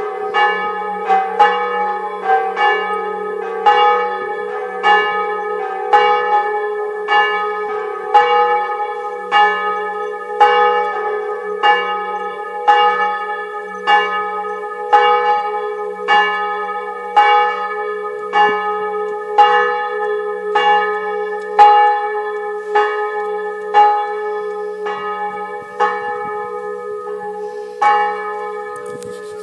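Church bells in a tower ringing to call people to a church service: an even, unbroken run of strokes, each ringing on into the next over a steady low hum.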